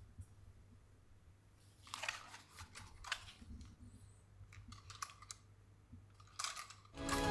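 Faint, scattered clicks and rustles of small objects being handled over a low hum, with music starting near the end.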